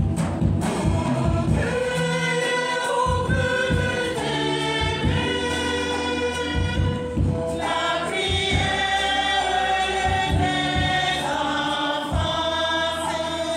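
Church choir singing a hymn in sustained chords, with drum beats underneath.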